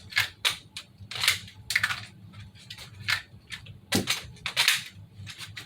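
Series of sharp plastic-and-metal clicks and clacks, about ten irregularly spaced, from an unloaded, ungassed airsoft replica gun being handled and dry-fired; the strongest knock comes about four seconds in.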